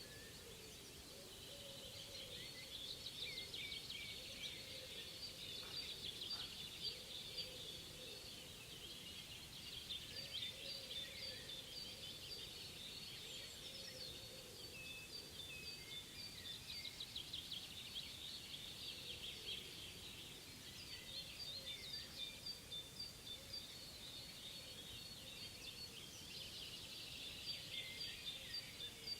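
Dawn-chorus-like birdsong: many small birds singing at once, a dense mix of high, rapid chirps and trills that swells and thins in waves.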